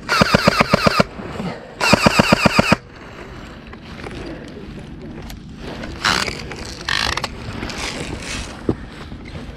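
Airsoft rifle firing two fully automatic bursts of about a second each, roughly ten shots a second, laying down cover fire. Quieter rustling and movement follow.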